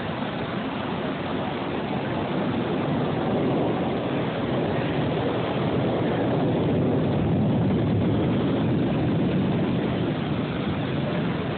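Steady rushing noise of wind and rain in a storm, swelling slightly midway.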